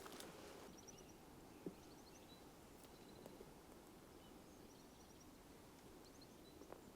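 Near silence: faint outdoor ambience with short, high chirps every second or so and a single soft click about a second and a half in.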